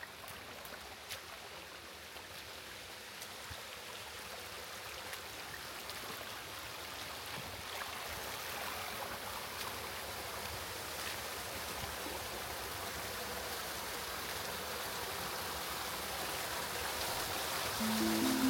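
Steady rushing of a stream's flowing water, growing gradually louder.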